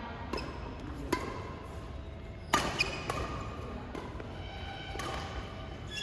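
Badminton rackets striking a shuttlecock in a rally: several sharp smacks at uneven intervals, the loudest about two and a half seconds in, with short high squeaks between hits.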